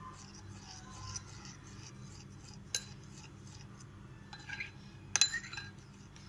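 A metal spoon clinking and scraping in a small dish of ginger-and-honey syrup as a spoonful is taken up, with one sharper ringing clink about five seconds in.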